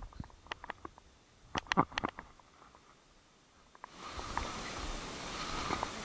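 Dry fallen leaves crackling and rustling, with a short cluster of louder crunches about two seconds in. From about four seconds, steady rustling and crunching of footsteps through deep dry leaf litter.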